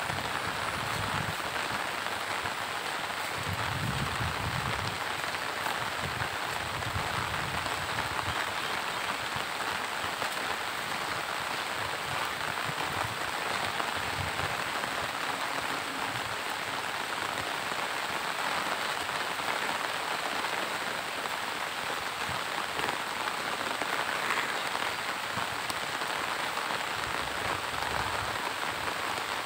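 Steady monsoon rain falling, an even continuous hiss of rain on leaves, ground and water.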